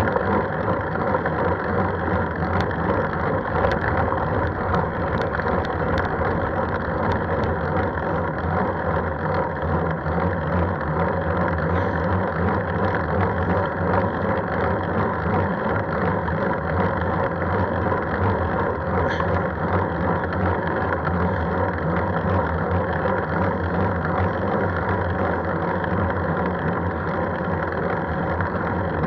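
Steady hum and rumble of a vehicle in motion, heard from on board, with a few faint ticks in the first several seconds.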